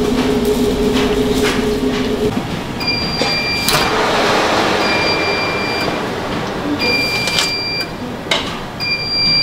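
A commercial convection oven's end-of-bake alarm beeps four times, each a long, high two-tone beep about two seconds apart; a steady hum stops just before it starts. A burst of noise comes as the oven door swings open, with clicks and clatter from the metal baking tray.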